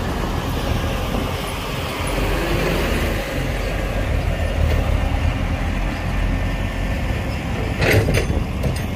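Heavy diesel construction machinery running with a steady low engine rumble, and a couple of sharp knocks near the end.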